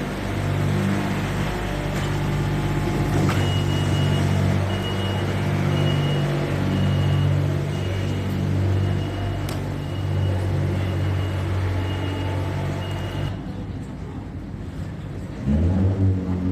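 A large vehicle's engine idling with a steady low hum, while a high-pitched warning beep repeats about twice a second for several seconds. Near the end the sound changes abruptly and a new low engine rumble comes in.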